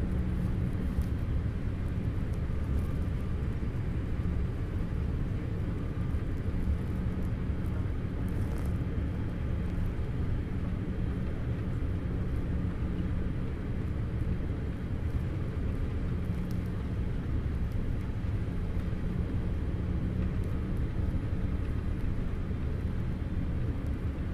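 Jet airliner cabin noise on final approach: the engines and rushing air make a steady low drone with a faint hum through it.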